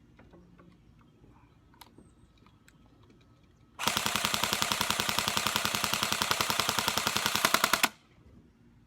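Airsoft M4A1 electric rifle (AEG, 9.4 V battery) firing one continuous full-auto burst of about four seconds: a rapid, even stream of gearbox-driven shots that starts about four seconds in and cuts off suddenly.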